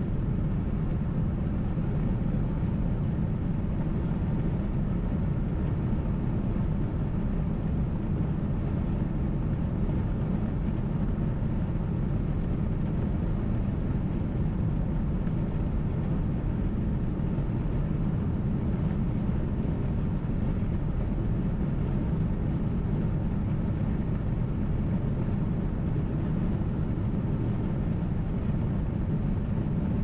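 Steady low rumble of a car cruising on a paved road, heard inside the cabin: tyre and engine noise at an even speed, with no changes.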